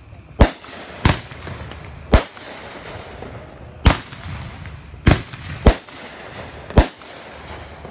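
Fireworks going off: seven sharp bangs at uneven intervals, one every half second to nearly two seconds.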